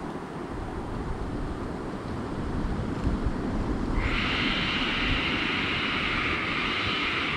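Aztec death whistle blown in one long, harsh, hissing shriek starting about halfway through, over a low rumble of wind on the microphone.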